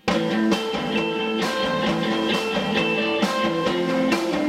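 A rock band of electric guitars, bass guitar and drum kit comes in together all at once and plays a song at a steady, loud level.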